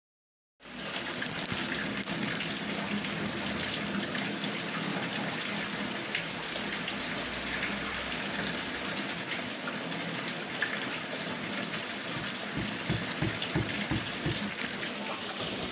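Steady rushing hiss, like running water, that starts abruptly under a second in, with a few low thumps near the end.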